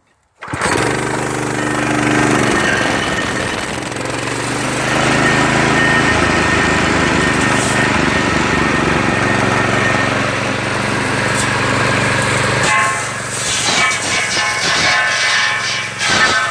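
A homemade belt-driven saw's small Harbor Freight motor starting about half a second in and running steadily and loud; its sound changes about 13 seconds in.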